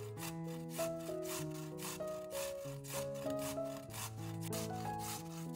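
Instrumental background music, a melody of held notes over a bass line, with an even rasping stroke about four times a second.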